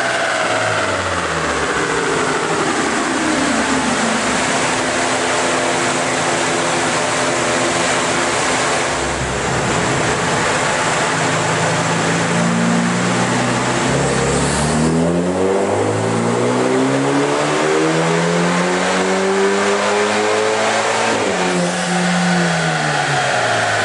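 Turbocharged BMW 2 Series engine running on a chassis dynamometer under the driver's throttle, with the dyno rollers and tyres adding a steady rushing noise. The revs fall off at first, hold steady for several seconds, then climb and drop back again, rising sharply once near the end before falling away.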